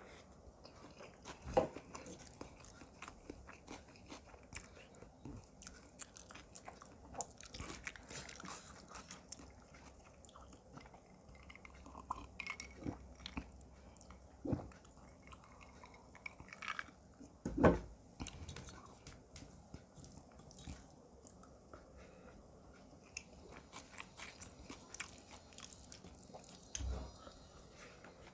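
Close-miked eating: steady chewing and crunching of food with small wet mouth clicks, broken by a few louder knocks, the loudest about two-thirds of the way through.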